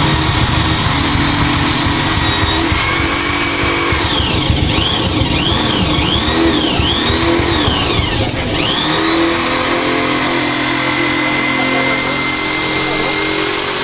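Handheld electric drill running with a steady high whine while boring a hole. Near the middle its pitch dips and recovers several times as the bit bites under load, then it runs steady again.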